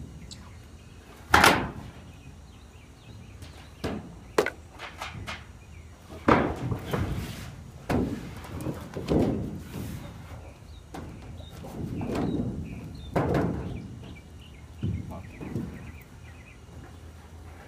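Sheet-metal pool wall repair panel being handled and pushed into place against the pool wall: a string of irregular thuds, knocks and scrapes, the loudest a sharp knock about a second and a half in.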